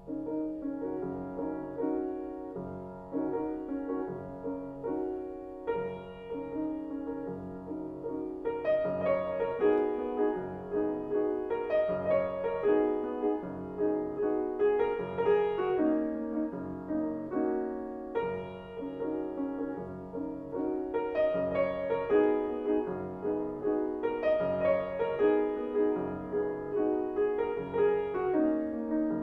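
Steinway grand piano played solo: an Afro-Cuban dance built on a steady repeated bass rhythm under chords, growing louder about nine seconds in.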